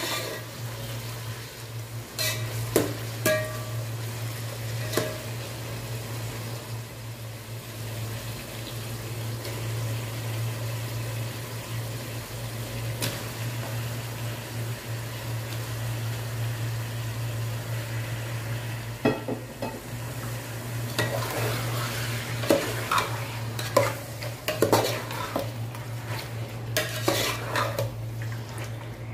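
Metal spoon stirring and scraping in an aluminium pot, knocking against its sides, while onions and tomatoes sizzle in oil. The clinks and scrapes come in bursts about two to five seconds in, then again from about twenty seconds in to the end, with only the sizzle between, over a steady low hum.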